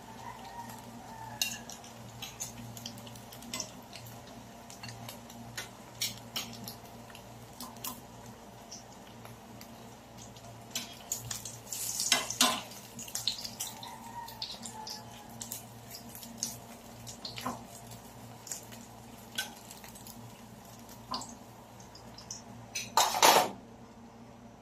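Metal tongs clicking and scraping against a ceramic-coated frying pan as fritters are turned and lifted from hot oil, over scattered crackles of frying oil. The loudest clatters come about halfway through and again just before the end, with a steady low hum underneath.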